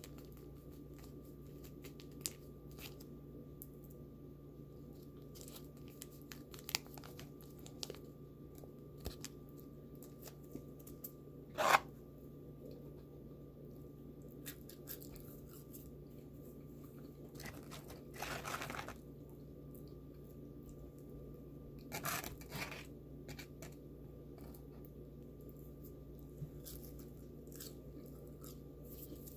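Close-miked Big Mac ASMR eating and food-packaging handling sounds: scattered small clicks and crunches, one sharp knock about twelve seconds in, and short tearing or rustling bursts around eighteen and twenty-two seconds. A faint steady hum runs underneath.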